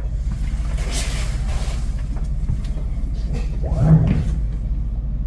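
Houseboat engine running with a steady low hum at slow manoeuvring speed, heard from inside the wheelhouse. A brief rushing sound comes about a second in, and a short sound that rises and falls in pitch comes near four seconds in.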